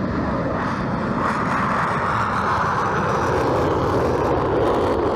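F-22 Raptor's twin Pratt & Whitney F119 turbofan engines at takeoff power as the fighter rolls down the runway and lifts off: steady jet engine noise that grows slightly louder.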